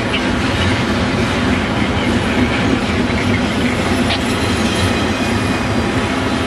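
Double-stack intermodal freight cars rolling past close by, a loud, steady noise of steel wheels running on the rails.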